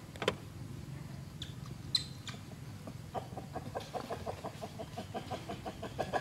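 An animal's rapid series of short, pitched calls, about five a second, starting about three seconds in and growing louder. A few sharp chirps and clicks come before it.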